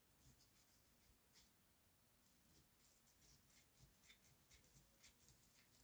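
Near silence, broken by faint scattered ticks and scrapes of a Bubba fillet knife cutting into a northern pike behind the head.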